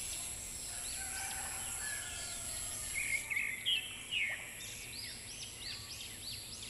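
Birds chirping in quick series of short, arching calls, loudest about three to four seconds in, over a steady high-pitched insect drone.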